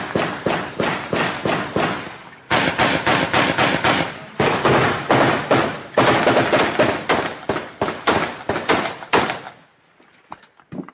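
Sustained automatic rifle fire from Kalashnikov-type assault rifles, with rapid shots overlapping one another. There is a brief break about two seconds in, and the firing stops about a second before the end.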